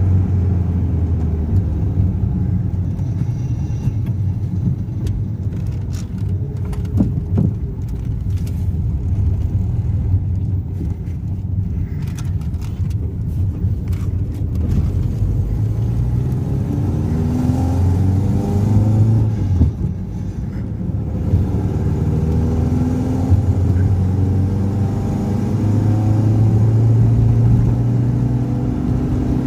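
Proton Wira's rebuilt MIVEC engine running, with a few sharp clicks in the first half and several rises and falls in pitch from about halfway on as it is revved.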